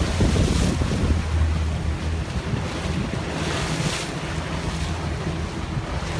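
Wind buffeting the microphone and water washing at sea, over a steady low drone of a boat motor running.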